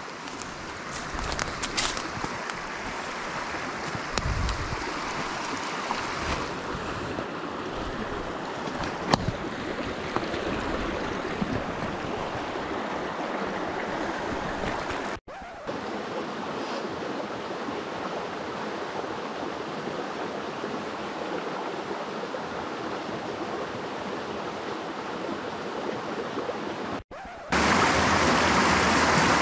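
Small mountain stream running over rocks, a steady rush of water with a few brief knocks in the first ten seconds. Near the end the water becomes much louder and closer.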